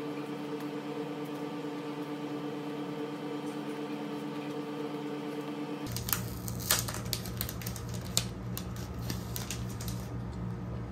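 A steady hum for about the first six seconds, then crinkling and sharp clicks of plastic sticker packaging being handled.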